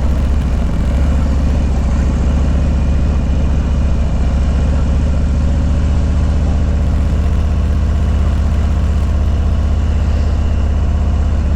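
Harley-Davidson Low Rider S's Milwaukee-Eight 114 V-twin engine running steadily on the move, a deep, even exhaust note.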